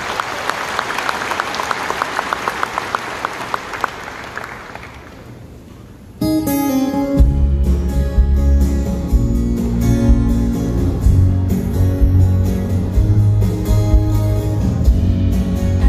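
Concert audience applauding after thanks from the stage, the clapping fading away over about five seconds. Then a live band suddenly starts playing, with a deep bass part coming in about a second later.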